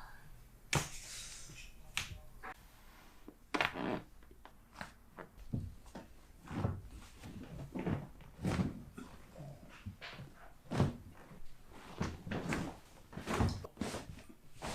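A series of short, sharp pops and knocks at irregular spacing: joints cracking during a chiropractic adjustment, mixed with the thuds of the body being moved on the table.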